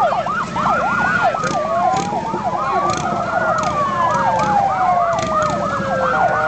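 Several police motorcycle sirens sounding at once: a slow wail rising and falling, overlapping with rapid yelp sweeps several times a second, over the low rumble of the motorcycles' engines.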